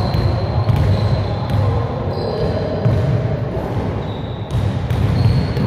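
A basketball dribbled on a gym floor: sharp bounces at an uneven pace as the player works the ball.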